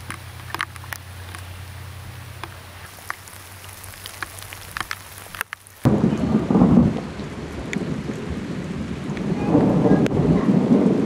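Thunder rumbling with rain, starting abruptly about halfway through and swelling again near the end. Before it, a quieter outdoor ambience with a low hum and scattered sharp clicks.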